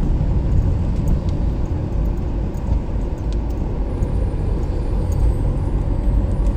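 Car engine and tyre noise heard inside the cabin while driving slowly: a steady low rumble with a few faint clicks.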